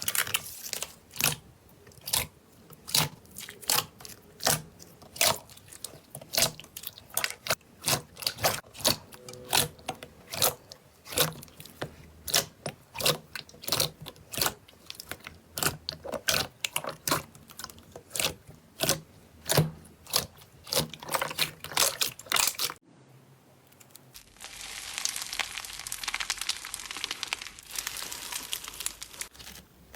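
Slime being squeezed and poked by hand, giving sharp wet pops and clicks about two a second. After a short break near the end, a steadier crackling rustle runs for several seconds.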